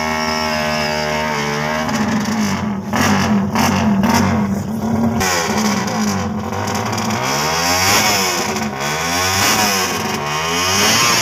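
Drag-race motorcycle engine revving: held at a steady note for the first couple of seconds, then throttled up and down several times, the pitch rising and falling again and again.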